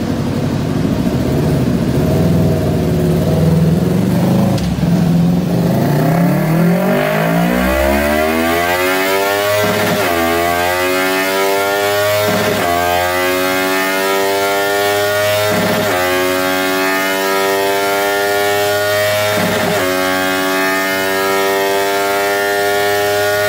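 Yamaha R3's parallel-twin engine run at full throttle on a motorcycle dyno. The revs climb hard and are broken by four quick upshifts in the second half, each higher gear pulling longer and more slowly toward top speed.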